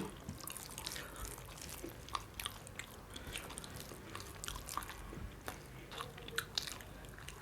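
A person chewing food, with soft, irregular mouth smacks and clicks.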